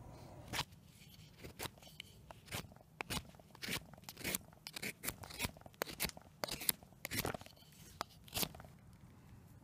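Swiss Army knife blade shaving slivers off a wooden spoon blank, a run of short crunchy scraping cuts about two to three a second. The cuts stop near the end.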